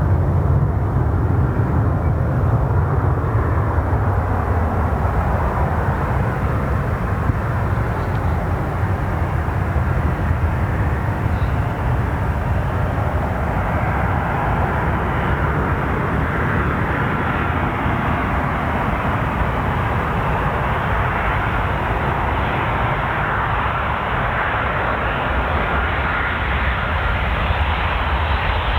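A Boeing 737-800's CFM56-7B jet engines coming in to land: a steady, loud rumble with a faint, even whine above it.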